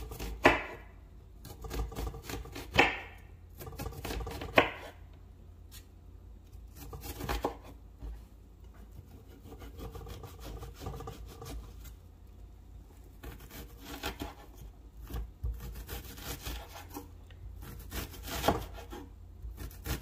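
Kitchen knife dicing a peeled onion on a wooden cutting board: irregular knocks of the blade on the board, a few of them sharper, with soft slicing and scraping between.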